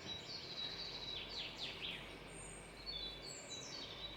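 Small birds chirping faintly: thin high whistles and quick downward-sweeping chirps, over a low steady hum.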